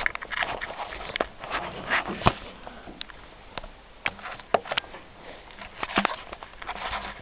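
Close handling noise from a handheld camera: irregular rustles and sharp clicks as fingers rub and tap over the microphone.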